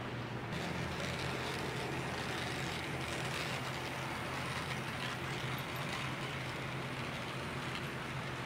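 HO-scale model train running on the layout, diesel locomotives hauling a double-stack container train: a steady hum with the rolling hiss of wheels on the rails, louder from about half a second in.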